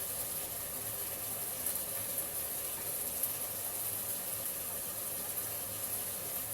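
Sliced chicken cooking in its dressing in a pan on the stove, giving a steady hiss with faint crackles.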